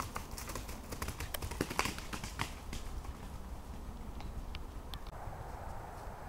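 A horse's hoofbeats as it canters close past over leaf-covered ground, a quick run of thuds that thins out after about three seconds. About five seconds in, a steady hiss takes over.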